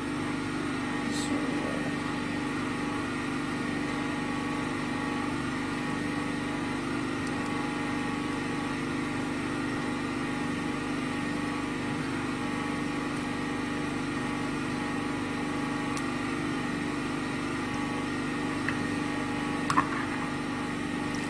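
Steady hum of a generator engine running, with several held tones and no change in pitch. Near the end a metal spoon clinks once against the glass bowl.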